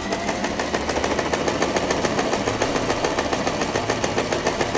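Janome TR1018 sewing machine running at a steady speed, its needle stitching a dense zigzag for step three of a four-step buttonhole, a fast, even rhythm of needle strokes.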